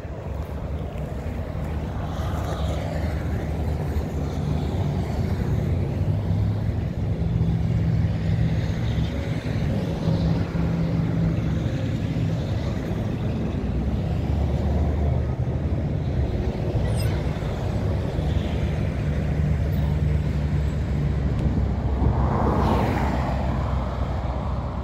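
A motor vehicle engine idling steadily with a low, even rumble, while highway traffic passes close by. One passing vehicle swells louder near the end.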